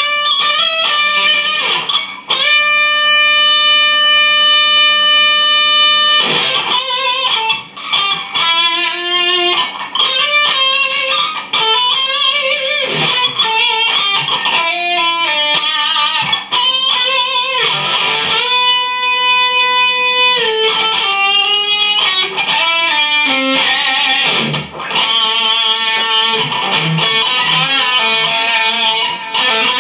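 Photogenic Les Paul-style bolt-on electric guitar played as a lead solo: quick runs of single notes broken by a few long held notes.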